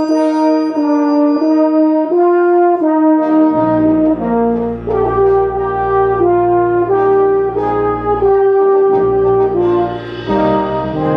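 Army concert band playing a brass-led fanfare of held notes moving in steps. Low bass notes come in about three and a half seconds in, and near the end the full band enters with a high cymbal-like shimmer.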